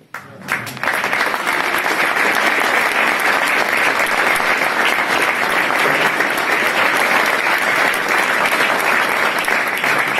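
Crowd applauding: loud, dense clapping that starts abruptly under a second in and holds steady.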